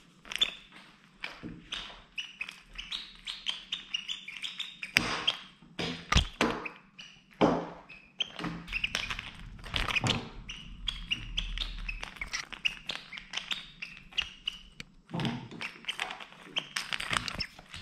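Quick irregular taps and scratches of a cat's claws and paws on a wooden tabletop while it bats at a wand toy, with a few heavier thumps of its body on the wood.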